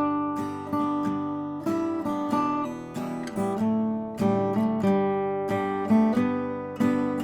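Acoustic guitar music: chords strummed about once or twice a second, each ringing and fading before the next.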